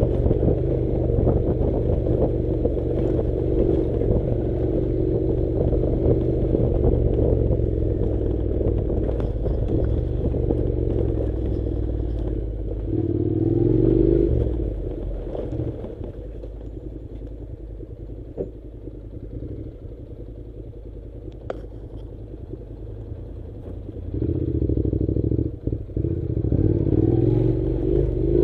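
Honda NC700 motorcycle's parallel-twin engine running while riding, with some clatter over the rough track. It picks up briefly about halfway through, then drops back quieter for several seconds before pulling harder again near the end.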